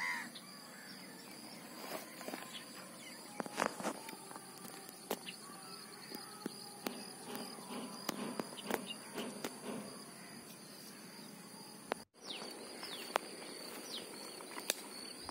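Faint outdoor ambience: a steady high-pitched insect drone, with scattered light clicks and rustles of handling.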